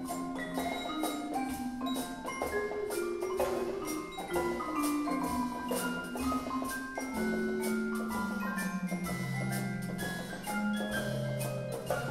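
Percussion ensemble playing: marimba and other mallet keyboard notes over a line of low notes, with drums and hand percussion keeping a steady beat.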